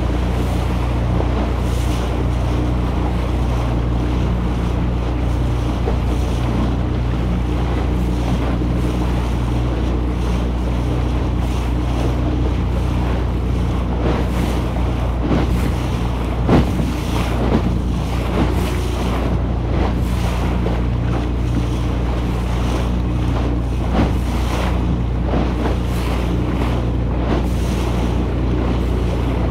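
A classic wooden motorboat under way, its engine running at a steady hum under a constant rush of water along the hull and wind buffeting the microphone. There is one louder knock about halfway through.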